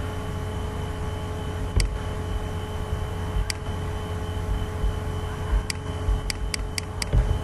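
Computer mouse clicking over a steady low hum and hiss. Single clicks come about two and three and a half seconds in, then a quick run of five near the end.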